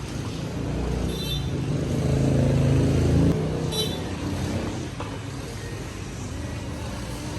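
A motor vehicle engine running, a low drone that swells about two seconds in and drops back after about three seconds, with two brief high chirps.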